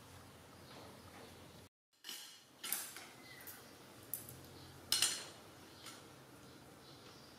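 Metal tongs and ceramic dishes knocking and clinking as they are handled: a handful of separate short clatters, the loudest about five seconds in.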